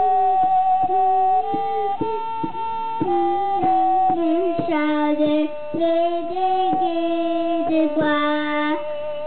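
A young boy singing a melody in steady held notes that change pitch every half second or so.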